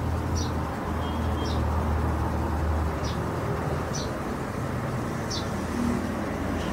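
Background ambience: a steady low rumble that fades about three seconds in, under a hiss, with short high falling chirps every second or so.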